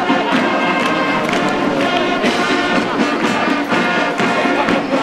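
A school marching band playing a tune on brass instruments over a steady drum beat.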